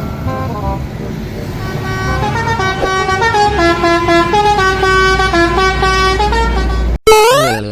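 Truck's telolet basuri horn set playing a stepping melody of held horn notes over a low engine rumble. It cuts off abruptly near the end and a quick rising glide of tones follows.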